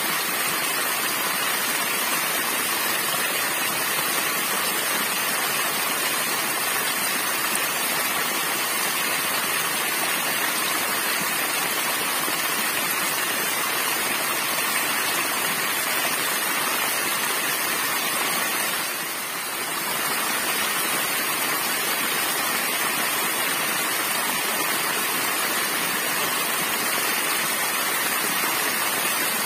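Small waterfall splashing steadily onto rocks and into a shallow pool, a constant rushing hiss of falling water that dips briefly about two-thirds of the way through.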